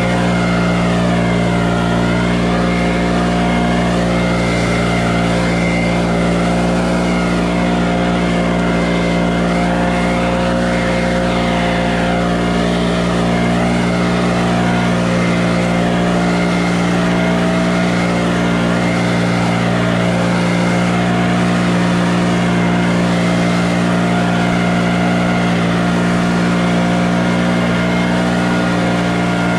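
An engine running steadily at a constant speed, its pitch unchanging throughout.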